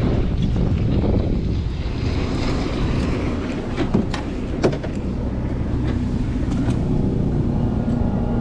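Boat motor running at idle with a steady low rumble, and wind buffeting the microphone. A few sharp clicks come about four seconds in and again shortly after.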